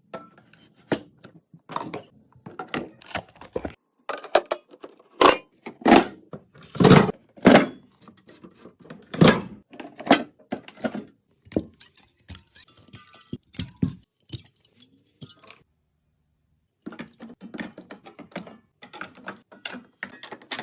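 Packaged food, containers and bottles being handled and set down: a string of short clicks, taps and clatter, with a brief silence about three-quarters of the way through.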